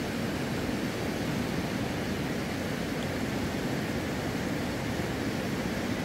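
Steady rushing of a mountain river running over stones.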